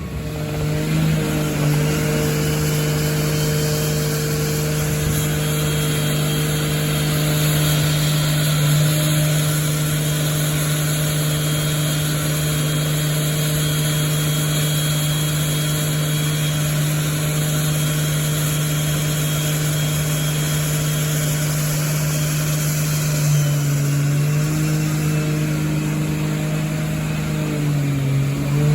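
Turbocharged Toyota 2JZ-GE VVT-i inline-six running on the dyno, held at a steady engine speed so its note stays at one pitch. The pitch dips briefly about 23 seconds in and again near the end.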